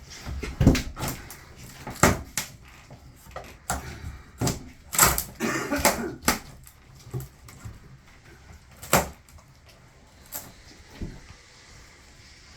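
Scattered knocks and clunks, about a dozen unevenly spaced sharp impacts, from demolition work on a houseboat.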